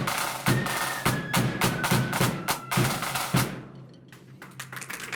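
Marching-band drums, with a bass drum and snare drums, beating about twice a second and stopping about three and a half seconds in. A quicker, quieter patter of sharp strikes starts near the end.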